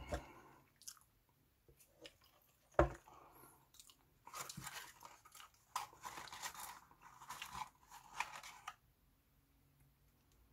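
A drink cup set down on a table with a single sharp knock, then a few seconds of crinkling and rustling as a ketchup sachet is torn open and the fries and paper wrapping are handled.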